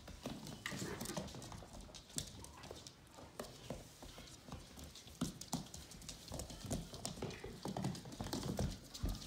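Vizsla puppies' claws and paws clicking and scrabbling on a hardwood floor as they run and play, in scattered, irregular taps.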